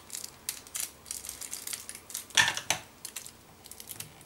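Scissors cutting a glued paper flap, with paper and card crinkling and small clicks, and a louder run of crackles about two and a half seconds in.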